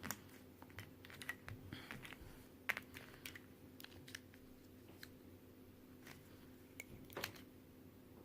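Light plastic clicks and clacks of Qiyi Square-1 puzzle pieces being handled and pulled apart, scattered irregularly, with a sharper click about 2.7 s in and a small cluster around 7 s.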